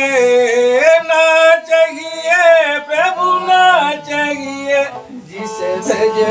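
Man singing a Hindi devotional bhajan in long, drawn-out, bending notes, to his own bowed folk sarangi. About five seconds in the voice dips and the sarangi carries on softly.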